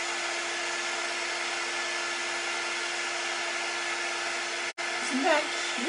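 Handheld craft heat tool blowing steadily, a constant rush of air with a steady hum under it, drying freshly applied permanent ink on a glass jar. The sound drops out for a split second near the end.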